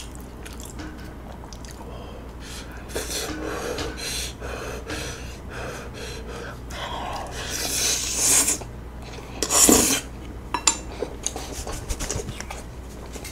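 Close-miked eating sounds: mouthfuls of saucy tteokbokki rice cakes and glass noodles being eaten, with loud wet bursts around the middle and a run of sharp clicks of chopsticks and dishes near the end.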